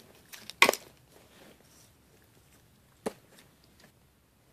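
A few short, sharp crackling clicks of a toddler handling and eating animal crackers, the loudest just under a second in and another about three seconds in.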